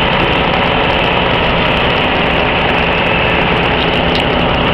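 Fire pump engine running steadily at a constant level, driving a hose that throws a high arc of water.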